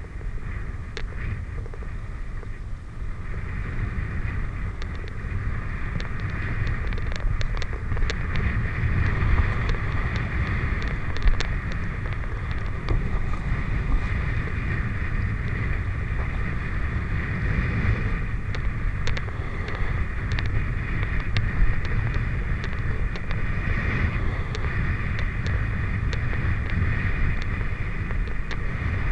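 Wind buffeting the microphone over a steady low rumble, with scattered sharp clicks.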